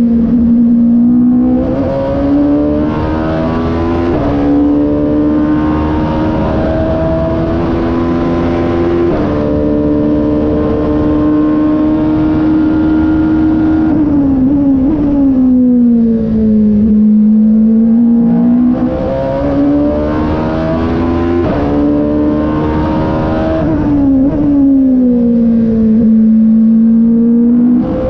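Porsche RS Spyder LMP2 prototype's V8 racing engine heard from the cockpit at full racing pace: pitch climbing under acceleration with brief breaks at gearshifts, then sweeping down twice under braking for corners before climbing again.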